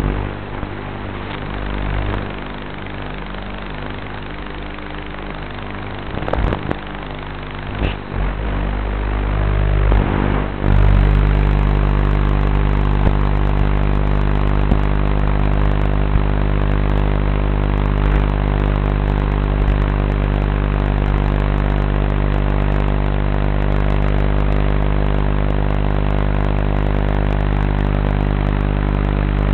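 Steady buzzing hum on a QAV210 racing drone's onboard FPV audio, holding one unchanging pitch, with a few short knocks about a third of the way in, after which the hum gets a little louder.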